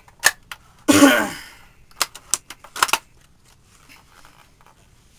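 Plastic and metal clicks and clacks of a magazine being swapped into a Well L96 airsoft sniper rifle, with a louder, longer scraping clack about a second in and a few sharper clicks after it.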